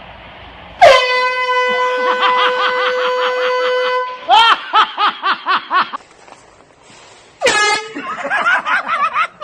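Handheld air horn blasting: a sudden, loud, steady one-note blast of about three seconds, with someone laughing in rhythmic bursts through its end and after. A second, shorter air horn blast comes about seven and a half seconds in, followed by more laughter.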